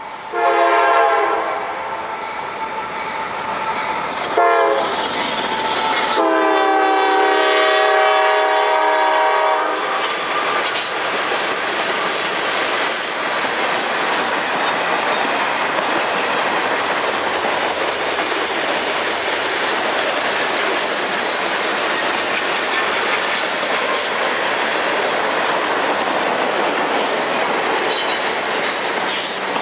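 Freight locomotive air horn sounding three blasts, long, short, then a longer one ending about ten seconds in, as a CSX GE ES40DC-led freight train approaches. The train's freight cars then roll past steadily, wheels clattering over the rail joints with brief high-pitched wheel squeals.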